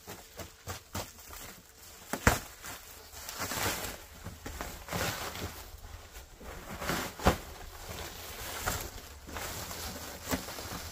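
Rustling and handling of packaging as a shipping pallet is unwrapped, with irregular knocks; the sharpest come about two seconds in and about seven seconds in.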